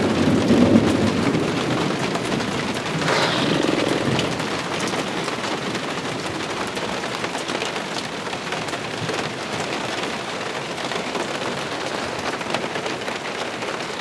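Heavy rain pouring down steadily, with low rumbles of thunder in the first four seconds before the rain carries on alone.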